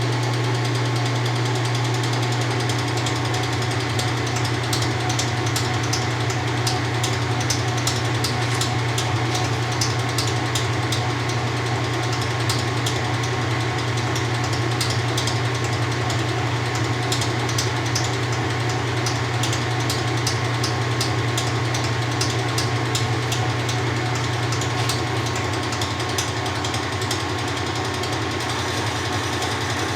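1993 Kenmore 80 Series top-load washer spinning a light load, the motor humming steadily. A fast ticking joins a few seconds in and fades near the end; its cause is unknown to the owner.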